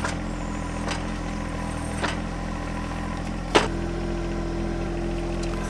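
John Deere 1025R compact tractor's three-cylinder diesel engine running steadily, with three sharp knocks about one, two and three and a half seconds in, the last the loudest.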